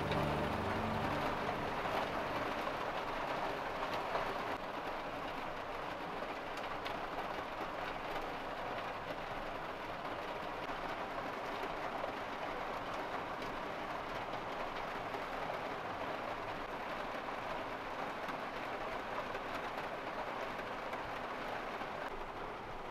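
Steady, even rushing noise with no distinct events, after music fades out in the first second.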